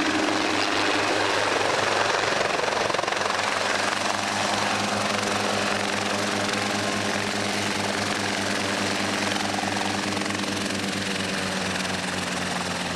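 Helicopter's rotor and engine running steadily with an even beating pulse as it comes down in a light autorotation descent and hovers low to land.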